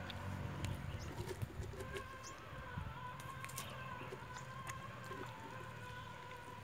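A hand scraping and scooping the flesh out of a hollowed raw pumpkin, with scattered small clicks and crackles over a steady faint hum.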